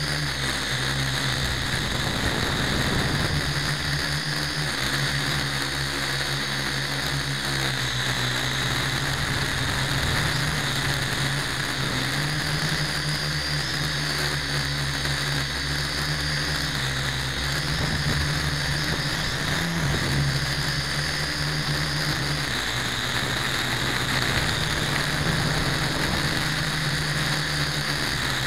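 Huiying X6058 quadcopter's motors and propellers in flight, heard close up through its onboard camera. A steady whine over a hiss, its pitch stepping up and down every few seconds as the motor speed changes.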